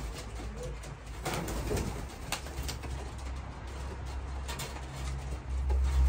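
Racing pigeons cooing over a low rumble, with a few sharp clicks about one to two and a half seconds in.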